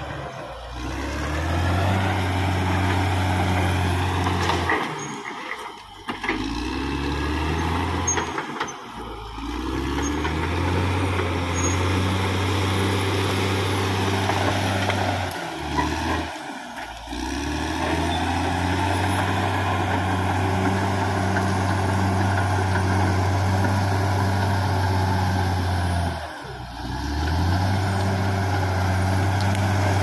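Caterpillar D6R XL bulldozer's diesel engine running hard as the dozer pushes felled trees and brush. The engine note dips briefly and comes back up about five times.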